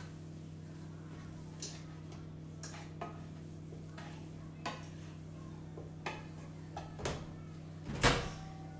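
A wooden spatula scrapes and taps in a frying pan as browned ground beef is stirred, in short separate strokes. A louder clunk comes near the end as the over-the-range microwave door is pulled open. A steady low hum runs underneath.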